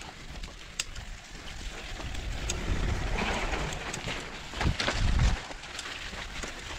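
Giant mountain bike descending a muddy dirt trail: tyres rolling and skidding over dirt and dry leaves, with scattered sharp clicks and knocks from the chain and frame over bumps, and a louder rumble about five seconds in.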